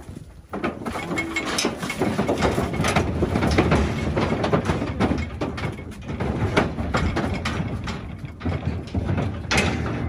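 Calves' hooves clattering and stamping on the floor of a livestock stock trailer as they load, the trailer's metal sides and the pipe gate rattling and banging. A dense run of knocks and rattles that starts about half a second in and eases near the end.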